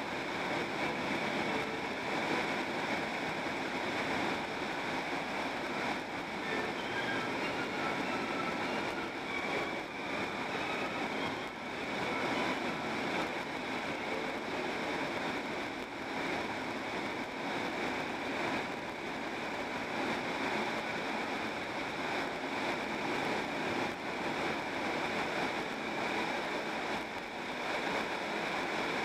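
Steady tyre and wind noise inside a car driving along a highway.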